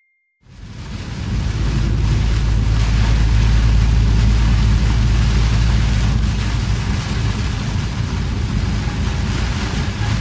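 Heavy rain on a moving vehicle, heard from inside the cab: a dense steady hiss of rain on the roof and windshield over a low road rumble. It comes in suddenly about half a second in and holds steady.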